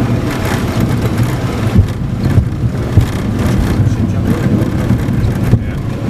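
Cockpit noise of a jet airliner rolling on a snow-covered runway: a loud, steady low rumble with a few sharp knocks, the strongest about two and three seconds in.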